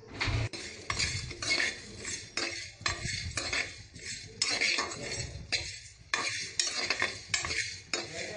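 A metal spoon stirs whole spices, coriander seeds, cinnamon, cloves and black peppercorns, dry-roasting in an aluminium pressure cooker. Repeated scraping strokes on the pan bottom come two to three a second, with the seeds rattling.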